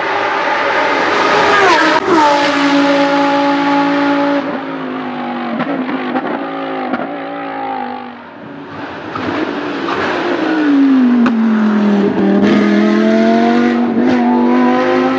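High-revving race car engine (V10 or V12) on track: the revs drop sharply about two seconds in and hold lower, the sound fades briefly around eight seconds, then the engine revs steadily higher under acceleration near the end.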